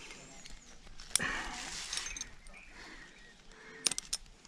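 Climbing gear handled at a bolted anchor: a sharp metal clink about a second in, a second or so of rustling, then a quick run of metallic clicks near the end as a carabiner is worked at the bolt.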